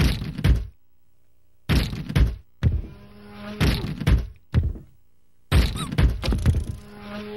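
Car doors swung open into a fire hydrant and a metal pole, about six hard thunks with short rattling tails, roughly a second apart, the last a quick cluster of knocks. The doors are the Saturn Ion's dent-resistant polymer side panels taking the blows.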